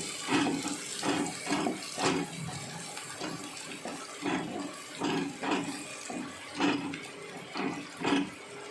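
Onion and ginger-garlic masala with bay leaf and cinnamon frying in oil in a kadhai, stirred with a spatula: a steady sizzle with repeated scraping strokes, about two a second, which stop shortly before the end.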